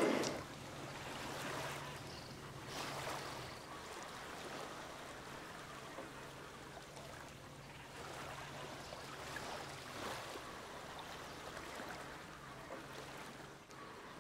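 Faint marina ambience: water lapping gently against the dock and hull, over a steady low hum.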